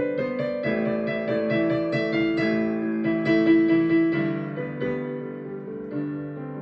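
Piano playing a slow, gentle melody over sustained chords, each note struck and left to ring; it grows softer near the end.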